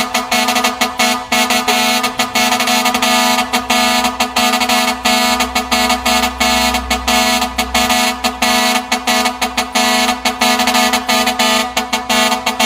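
Multi-tone truck air horn sounding a loud chord, keyed on and off in quick, uneven blasts several times a second.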